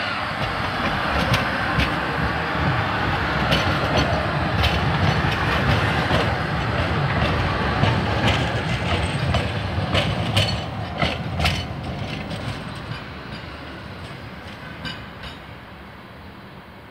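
Low-floor articulated tram passing close by and pulling away: a steady rumble of wheels on rail, with sharp clacks as the wheels cross the track about ten seconds in, then fading as it moves off.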